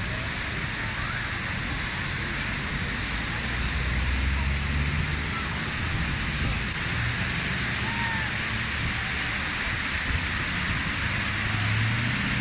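Steady rushing of falling water from a waterfall, an even hiss that hardly swells or fades.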